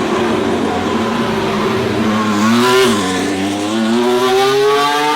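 Race car engine accelerating hard, its pitch climbing, dropping sharply about three seconds in at a gear change, then climbing again.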